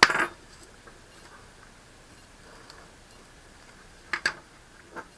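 Sharp clicks and taps: a loud click at the start, a quick double click about four seconds in, and a lighter one near the end, with faint room tone between.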